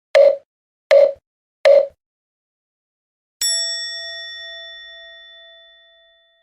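Three hollow wooden knocks like a mokugyo (wooden fish), about three-quarters of a second apart, then a single struck bell-like ding that rings out and fades over about three seconds. This is the Japanese "poku poku poku chiin" sound effect for thinking and then getting the answer.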